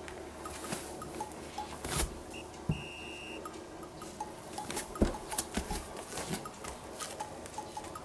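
Scattered light knocks and rustles from handling a dangling cat-teaser toy, with a sharp knock about five seconds in and a short high beep about three seconds in.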